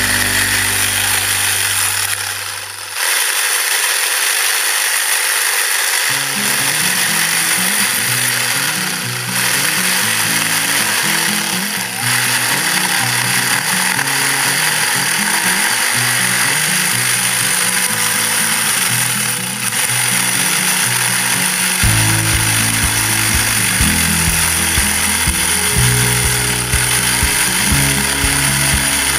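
A cordless reciprocating saw running steadily as it cuts through a log, dipping briefly a few times. Background music with a stepping bass line plays under it and grows heavier about two-thirds of the way through.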